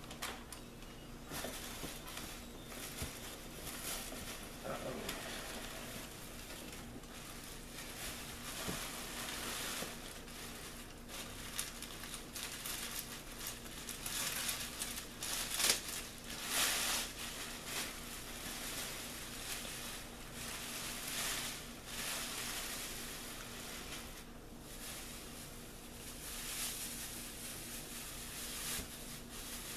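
Thin plastic shopping bags crinkling and rustling as they are handled and pulled open, in irregular bursts that are loudest about halfway through.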